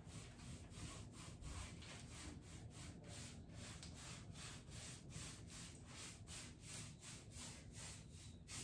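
Faint rubbing of a paint applicator worked back and forth over the wooden surface of a hutch as paint is spread on, in quick even strokes of about three a second.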